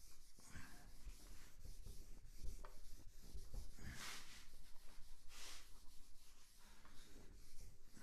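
Whiteboard being wiped with an eraser: a series of rubbing swishes across the board, the strongest about four and five and a half seconds in.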